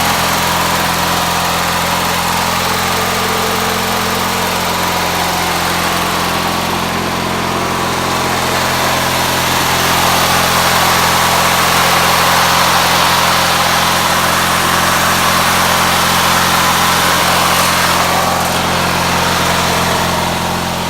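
Riding mower's 18.5 hp Briggs & Stratton twin-cylinder engine running steadily, freshly started, a little louder from about halfway through.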